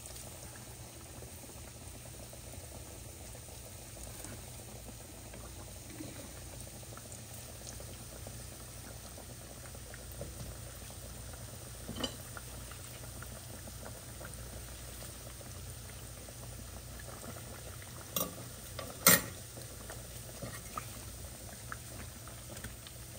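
Johnny cake dough deep-frying in a pan of hot oil: a steady bubbling sizzle. A few short sharp clicks sound in the second half, the loudest about three-quarters of the way through.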